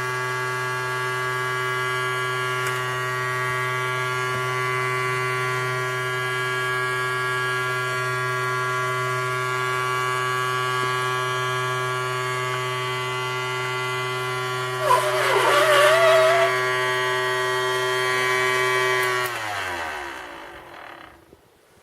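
Small electric motor of a toy vacuum cleaner running with a steady hum, then switched off and winding down, its pitch falling until it stops. Partway through, a brief louder warbling sound rises over the hum.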